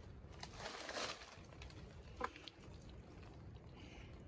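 A hand working in wet mud and rotten wood: a short wet rustle about a second in, then a single sharp slap or click about a second later.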